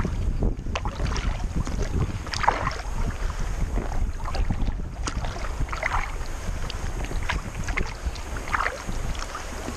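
Wind buffeting the microphone in a steady low rumble, with a kayak paddle blade dipping and splashing into the water about every three seconds.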